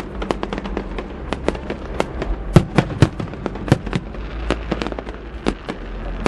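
Fireworks going off in a rapid, irregular string of sharp bangs and cracks, several a second, with the loudest bangs about two and a half to four seconds in.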